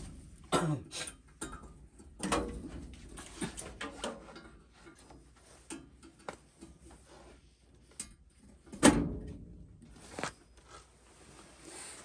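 Tools and furnace parts being handled: a string of knocks and clatters, the loudest a sharp knock about nine seconds in.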